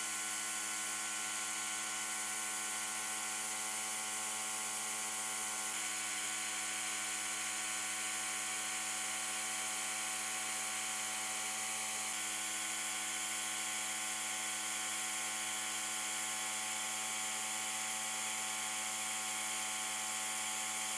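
Sandblaster in a blast cabinet: a steady hiss of compressed air and abrasive from the ceramic nozzle, blasting rust and old paint off a steel stove fuel tank, over a constant machine hum.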